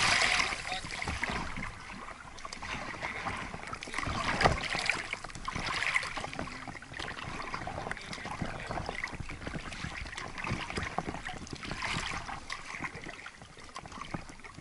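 Water splashing and lapping around a small children's inflatable boat as it is rowed slowly, coming in irregular surges every few seconds.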